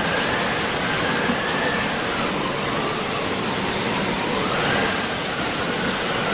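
Synthesized sound effect for an animated logo intro: a steady rushing noise like a waterfall, with a faint tone that slowly dips and rises, cut off abruptly at the end.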